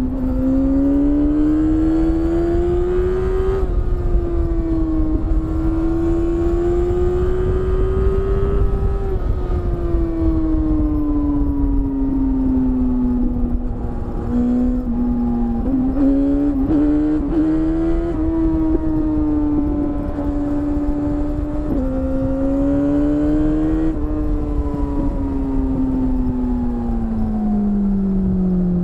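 BMW S1000RR's inline-four engine heard from onboard while riding. The revs climb and fall repeatedly as the throttle is worked, with a few abrupt steps in pitch, and a long fall near the end as the bike slows.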